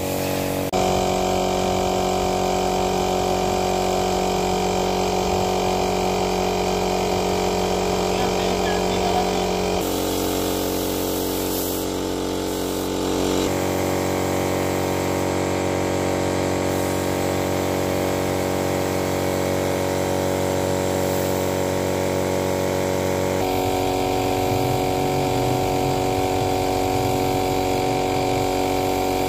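Air compressor running steadily while a spray gun hisses, spraying polish onto wooden furniture. The hum changes abruptly in pitch and tone several times.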